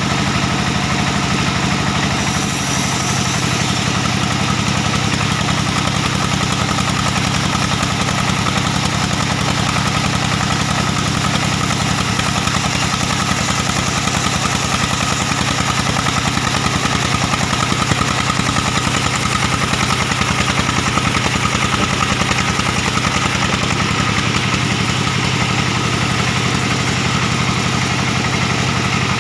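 Diesel engine driving a sawmill band saw through a large, dry acacia log, running loud and steady. About two seconds in the engine note drops and a high hiss rises as it works under load, and both ease back near the end.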